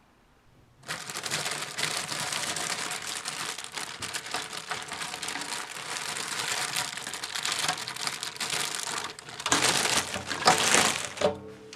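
Dense crinkling and crackling, starting about a second in, with two louder bursts near the end.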